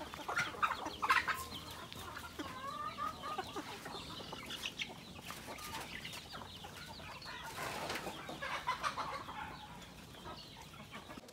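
A flock of free-range native chickens clucking as they feed, many short calls overlapping.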